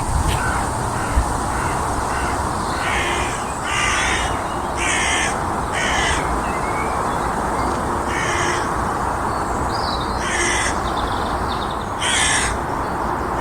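Several crows cawing back and forth, harsh calls coming every second or two, some in quick pairs.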